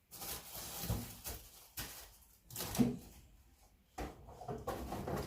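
Household handling noises in a small room: a run of short knocks and rustling that starts and stops abruptly several times, with one sharper knock a little under three seconds in.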